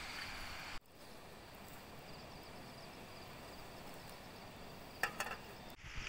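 Night forest ambience: insects chirping faintly over a steady low hiss, with a brief cluster of clicks about five seconds in.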